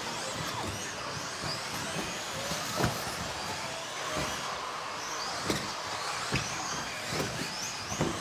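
Several 1/10-scale electric 2WD RC buggies racing: their motors whine, gliding up and down in pitch as the cars accelerate and brake. Occasional sharp knocks come from the cars on the track.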